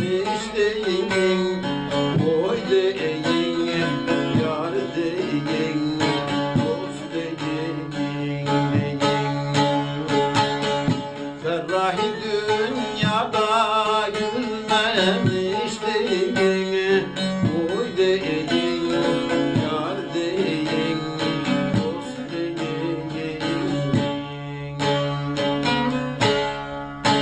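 Bağlama (long-necked Turkish saz) played with a plectrum: a fast, busy instrumental melody of picked and strummed notes that runs without a break.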